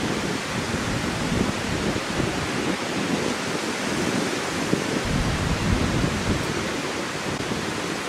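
Steady rushing wind noise, with irregular low buffeting on the microphone.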